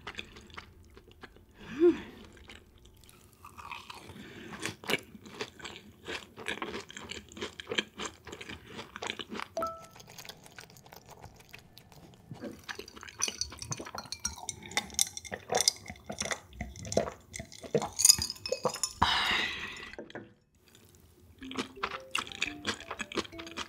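Close-miked chewing of a fried cheese ball: crisp crunches and wet mouth clicks in irregular bursts, with a brief lull near the end.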